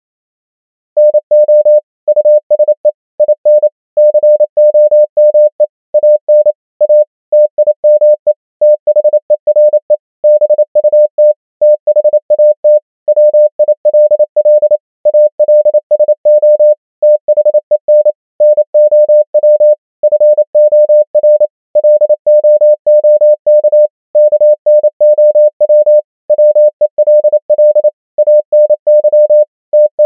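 Morse code practice tone: a single steady beep keyed on and off in dots and dashes at 28 words per minute, spelling out common English words with short gaps between words. It starts about a second in.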